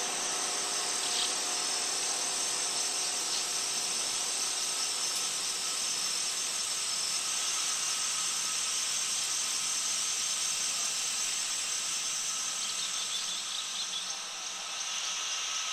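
Steady outdoor insect chorus, a continuous high-pitched shrill buzz that holds level throughout.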